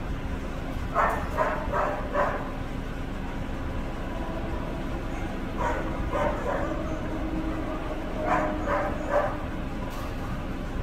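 A dog barking in three short runs of three or four barks each, over a steady background hum.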